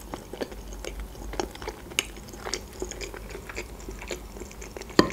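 Close-miked chewing of boiled pelmeni (dumplings): many small, wet mouth clicks. A fork picks at the dumplings on a wooden board, with a sharper click about five seconds in.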